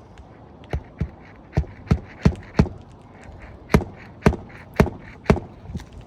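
Hammer blows on an asphalt-shingle roof, about ten sharp knocks in two runs, working a test shingle snugly into place.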